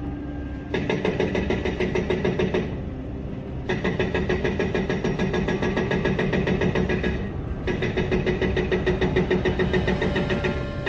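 Excavator engine running steadily, with three bursts of rapid, even metallic knocking at about five strokes a second, each lasting a few seconds and then stopping.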